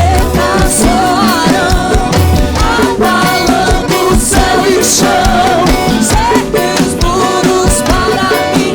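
Upbeat gospel band music: a full band with a steady drum beat under a wavering melody line.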